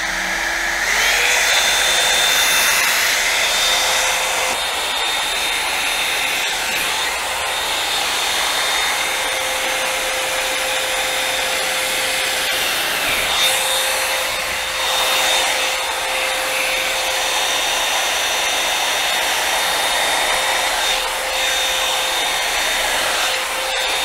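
Revlon One-Step hair dryer brush running: a loud, steady rush of blown air with a motor whine. It is switched on at the start, and the whine rises in pitch over the first second as the motor spins up, then holds steady.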